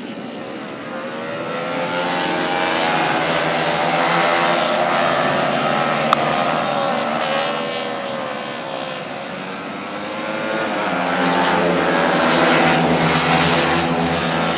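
Several 70cc street-class racing motorcycles at high revs, their small engines whining as a pack goes by. The sound swells, eases off about nine seconds in, then swells again as more bikes pass, with a single sharp click about six seconds in.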